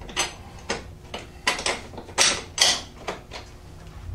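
Metal hardware clinking and knocking as bolts and spacers are worked by hand into an ATV foot peg extender: about nine short knocks and clicks, the loudest a little past two seconds in.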